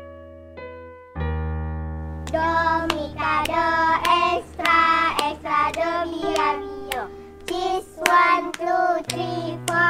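Music: a few separate electric piano notes, then a held low keyboard chord, and from about two seconds in a voice singing a melody over it, marked by sharp claps.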